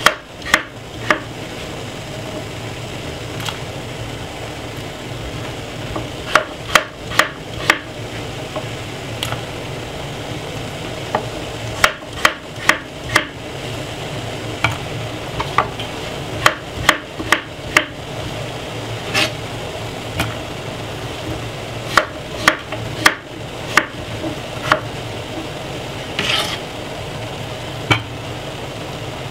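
Knife chopping pumpkin on a wooden cutting board: sharp taps in short runs of three or four, with pauses between runs, over a steady low hum.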